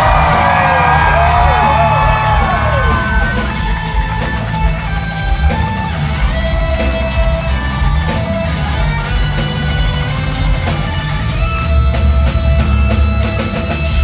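Hard-rock band playing live and loud, electric guitar to the fore over bass and drums, with notes bending up and down in pitch in the first few seconds and held notes later.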